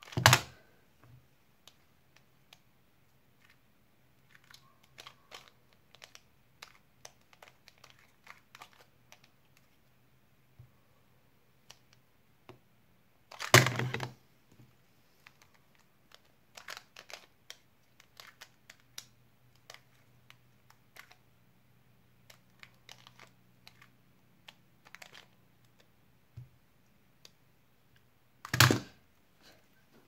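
Plastic 2x2x1 puzzle cube being turned by hand: scattered light clacks of scramble turns, broken three times, about fifteen seconds apart, by a loud sharp burst as a split-second solve is done and the hands come down on a tablet timer.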